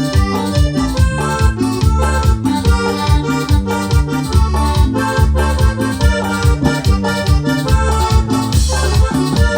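Instrumental cumbia played on an electronic keyboard: an accordion-style melody over a steady, pulsing bass and rhythm backing.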